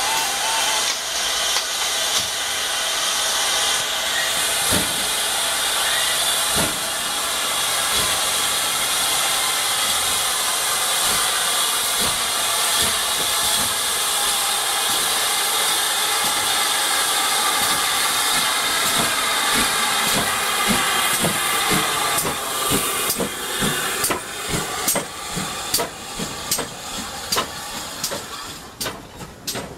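Steam locomotive No. 5239, a GWR 2-8-0 tank engine, approaching slowly and passing with a loud, steady hiss of steam. From about two-thirds of the way in, clanks and clicks from its wheels and motion come more and more often as it draws level.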